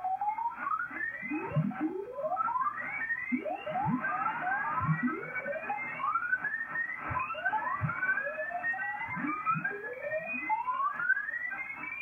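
Icom IC-756 receiver playing Morse code (CW) signals on the 160-metre band as its tuning knob is turned up through a crowded contest: one station's keyed tone after another glides upward in pitch and passes out of hearing, about one or two a second, over a steady band-noise hiss.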